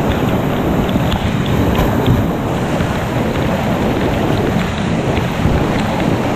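Whitewater rapids rushing loudly and steadily over rocks, heard from a kayak in the current, with small splashes ticking through it.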